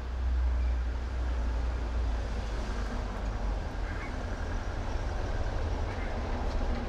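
Street traffic: a passing car's low engine and tyre rumble, loudest in the first couple of seconds, then a steady hum of street noise.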